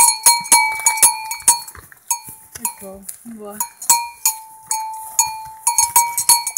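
A bell hanging at a horse's neck clinking irregularly, a few strikes a second, each ringing briefly with the same clear tones, as the horse moves its head; the strikes thin out for a couple of seconds in the middle.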